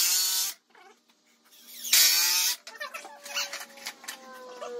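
Cordless drill driving 3½-inch screws into wooden studs to fasten two studs together, in two short bursts about two seconds apart, each a brief motor whine.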